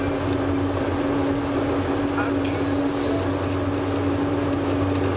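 A car driving at road speed: steady tyre and engine noise with a constant low hum.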